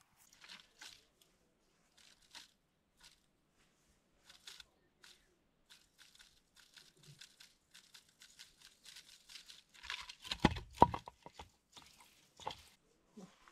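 Scattered crackling and rustling of dry brush, short and sparse, building to a cluster of louder crunches and knocks about ten seconds in.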